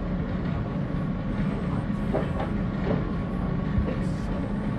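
Steady low background rumble with a faint constant hum, and a few faint, brief voices about two seconds in.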